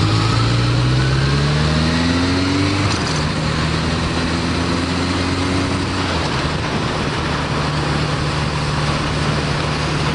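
Honda CB1100EX's air-cooled inline-four engine accelerating hard. The pitch rises, drops at an upshift about three seconds in, rises again, then settles to a steady cruise about six seconds in. Heavy wind noise on the microphone throughout.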